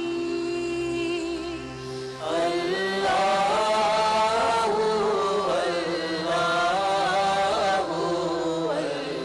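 A hamd, a devotional song in praise of God, sung by a vocal ensemble. A woman's voice holds one long note, and about two seconds in a fuller, louder group of voices comes in with a winding, ornamented melody.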